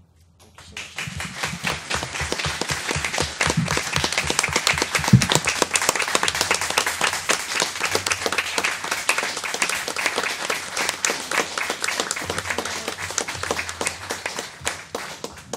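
Audience applauding, many people clapping at once in a meeting room. The clapping starts about half a second in, builds quickly, holds steady and stops abruptly near the end.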